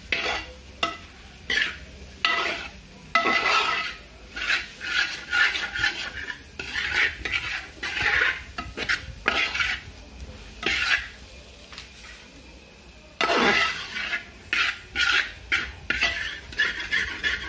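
A ladle scraping and stirring tripe fry in a pan, in repeated short strokes, about one or two a second, with a brief lull a little past the middle. The tripe is near the end of dry-frying and is kept moving so it does not stick to the bottom.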